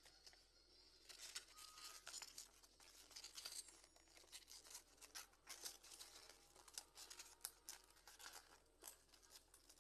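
Faint crinkling and crackling of packing tape and paper being handled, a string of small irregular clicks and rustles.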